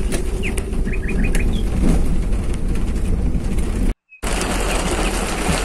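A vehicle's steady low rumble under a bird's quick run of short chirps in the first two seconds. About four seconds in the sound cuts out briefly and comes back as a denser hiss of rain.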